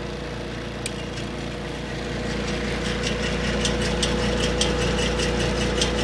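Electric cooling fan running beside an old refrigerator, giving a steady hum with a clear tone. From about two seconds in, the fan rattles in quick ticks, about three a second.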